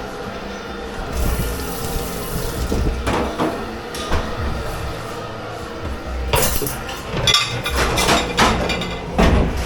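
Dishwashing at a sink: a spell of running water about a second in, then dishes and pans knocking and clattering, with a thick run of clatter in the last few seconds.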